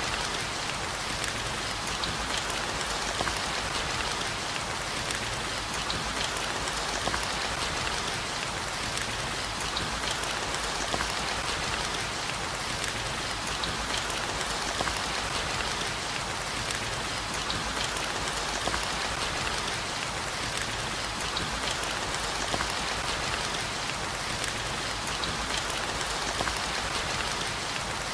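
Steady heavy rain: a dense, even hiss of falling rain with many small, sharp drop taps scattered through it, unchanging throughout.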